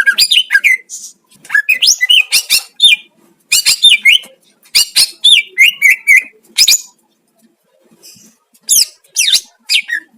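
Cucak ijo (green leafbird) singing loud bursts of fast, varied whistles and chattering notes that sweep up and down in pitch. After a pause of about two seconds, a last burst comes near the end.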